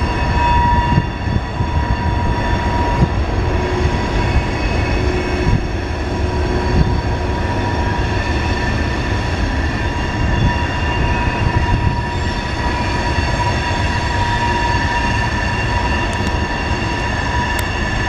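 Covered hopper cars of a mixed freight train rolling past on a curve: a steady, loud rumble of wheels on rail with a continuous high-pitched squeal from wheel flanges grinding through the turn.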